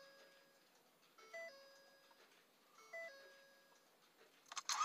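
Ford Super Duty door-ajar warning chime with the engine off: a two-note descending chime sounding three times, about a second and a half apart. Near the end comes a quick run of clicks, then the starter cranks the 6.7 L Power Stroke V8 diesel and it starts.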